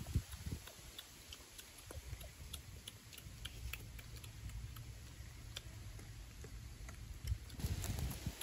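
Scattered faint, irregular ticks and clicks over a low rumble, with a few heavier low thumps near the end.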